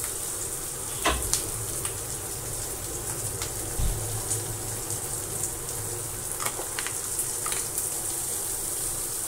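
Chopped capsicum, onion and green chillies sizzling steadily in oil in a non-stick kadhai over a high gas flame, with a few faint clicks here and there.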